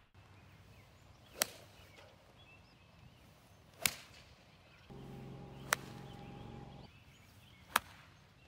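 Four crisp golf-club strikes on the ball, each a single sharp click, about two seconds apart. A steady hum sits under the third strike.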